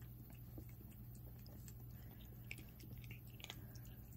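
Faint, scattered crunches and clicks of a puppy chewing dry kibble.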